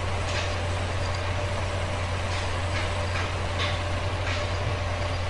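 Steady low hum under an even hiss, with a thin constant higher tone and a few faint soft clicks.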